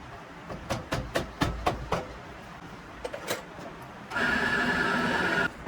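Several sharp knocks, like metal tools being handled, then a small motor runs at a steady pitch for about a second and a half before stopping abruptly.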